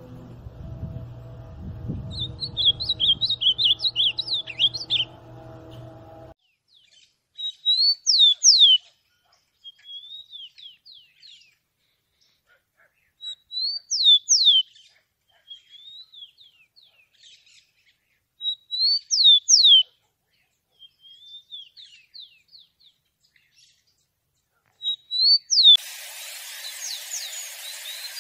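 Ultramarine grosbeak (azulão) singing a fast warbling phrase over a low steady hum. Then a rufous-collared sparrow (tico-tico) repeats its song four times, about every five to six seconds: loud clear whistles sliding down, followed by softer short notes. Near the end a hissy recording takes over.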